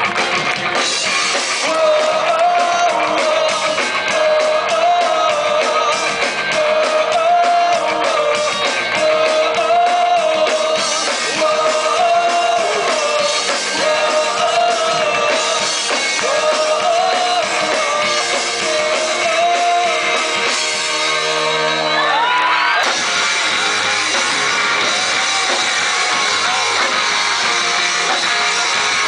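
Punk rock band playing live: electric guitars, drums and shouted singing over a repeating melodic line. About three-quarters of the way through, the song breaks into a held note with a rising slide, then carries on.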